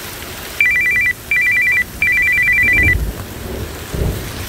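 Loud electronic two-tone trill, flipping rapidly between two high pitches, in three bursts with the last the longest. It is followed by two short low rumbles, over a steady hiss of rain.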